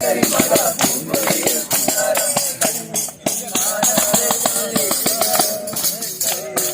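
A tambourine jingling in a quick, steady rhythm while voices sing a song.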